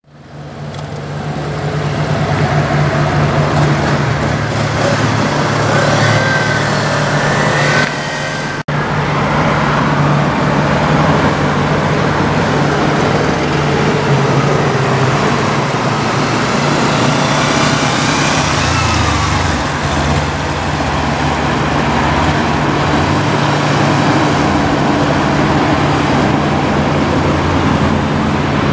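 Road vehicle on the move: a steady engine drone under heavy wind and road noise, with a brief dropout about eight and a half seconds in.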